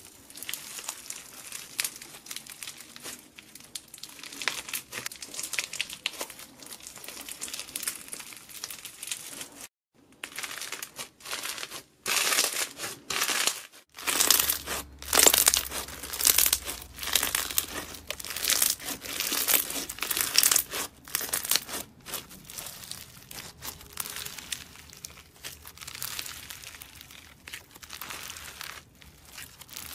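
Hands squeezing and kneading slushie bead slime, the beads giving a dense, irregular crackling. The crackling breaks off briefly about ten to thirteen seconds in and is louder afterwards.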